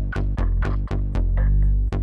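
Electronic background music with a sustained deep bass and a steady beat of about four strikes a second.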